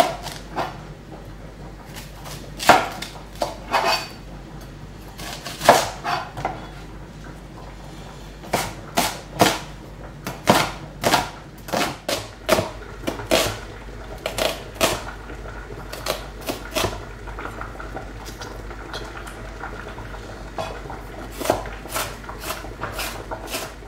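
Knife chopping an onion on a plastic cutting board: sharp, irregular knocks of the blade against the board, some in quick runs, over a steady low hum.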